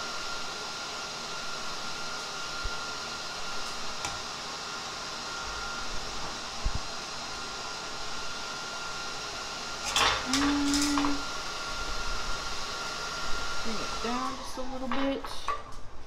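Steady mechanical hum with a thin high whine, and steel parts clinking and scraping on a steel welding table: a few sharp clinks with a short ring about ten seconds in, then more rattling clinks near the end as the whine drops in pitch.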